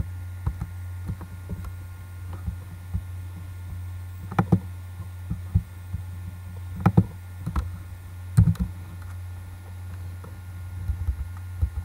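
Steady low electrical hum with scattered soft clicks from a computer mouse and keyboard, and four louder knocks between about four and nine seconds in.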